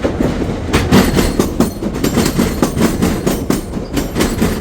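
Commuter train running on the rails, wheels clattering loudly and irregularly over the track.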